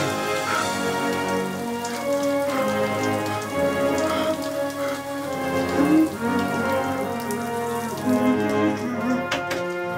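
Shower water spraying steadily, with orchestral music playing over it.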